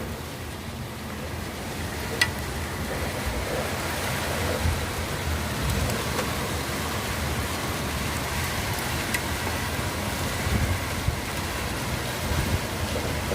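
Rain pouring steadily in a storm, with irregular low rumbling swells and a sharp click about two seconds in and another about nine seconds in.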